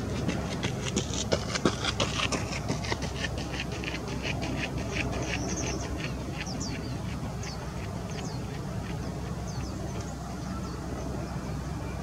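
Female American kestrel calling: a rapid series of sharp, high klee-klee notes, about six a second, that fades out about five seconds in. Scattered thin high chirps follow, over a steady low background rumble.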